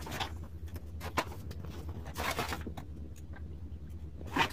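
Plastic packaging crinkling and rustling as it is handled in and out of a cardboard box. Scattered small clicks, with longer rustles about two seconds in and again near the end.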